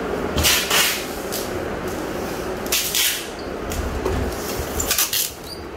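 Packing noises: cardboard boxes and plastic wrapping being handled, with three short rasping, scraping bursts, about half a second in, about three seconds in and near the end.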